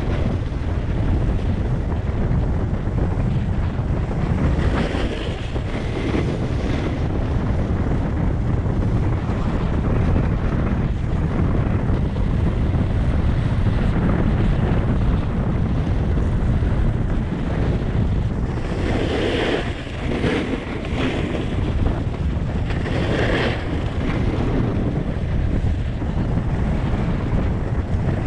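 Wind buffeting a GoPro 7's microphone during a fast snowboard descent, a steady low rumble, with the board's edge scraping across packed snow in turns, louder about five seconds in and twice more near the end.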